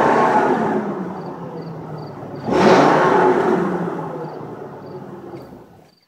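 Exhaust note of a 2008 Ford F-250's 6.8-litre Triton V10, with revs falling away, then one quick blip of the throttle about two and a half seconds in, easing back down. Near the end the sound cuts off suddenly.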